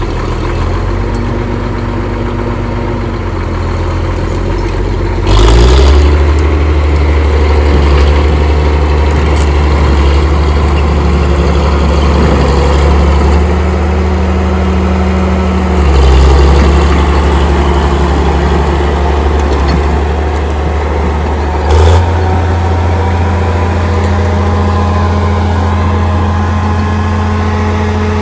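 Caterpillar D6B bulldozer's diesel engine running. Its speed steps up and down a few times, with a brief louder surge at each change.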